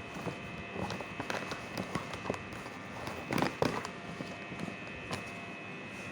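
Scattered light taps and clicks, a few louder knocks about three and a half seconds in, over a steady faint high-pitched tone.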